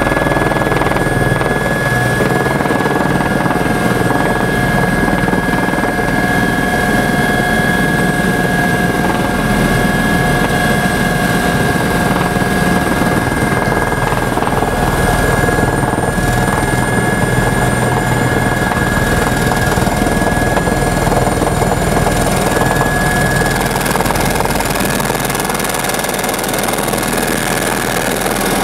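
Helicopter engine and rotor heard from inside the cabin on the approach to land: a steady, loud running noise with a high whine held on a few constant pitches over a low rumble, easing slightly near the end.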